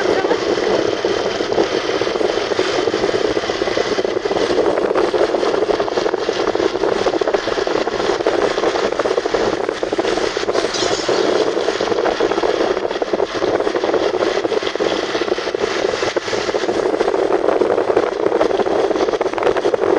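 Heavy rain falling hard: a steady, dense hiss with a fine rattle of drops throughout.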